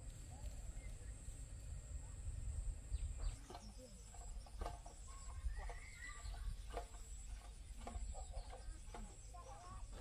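Chickens clucking in short, irregular calls starting about three seconds in, over a steady high insect trill.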